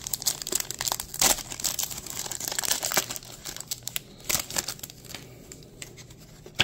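Foil wrapper of a Pokémon Silver Tempest booster pack being torn open and crinkled in the hands, dense sharp crackling for the first four seconds or so, then quieter handling as the cards come out. A single sharp tap right at the end.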